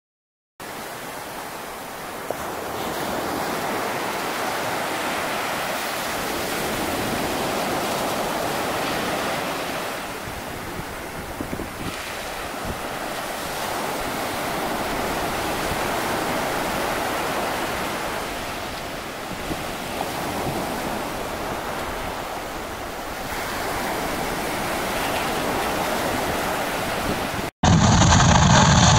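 Sea surf washing with wind on the microphone, swelling and easing in slow waves. Near the end it cuts suddenly to loud, steady helicopter engine and rotor noise.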